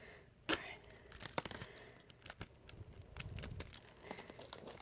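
Plastic CD packaging being opened by hand: soft crinkling and tearing with scattered sharp clicks and rustles.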